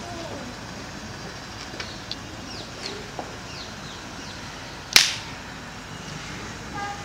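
Outdoor background with a few faint, short birds' chirps, and about five seconds in a single loud, sharp crack that dies away quickly.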